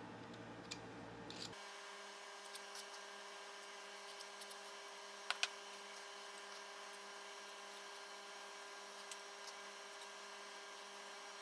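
Faint scattered clicks and taps as knife handle scales are handled and set against each other on a taped workbench, over a steady low electrical hum. Two sharper clicks come close together a little past the middle.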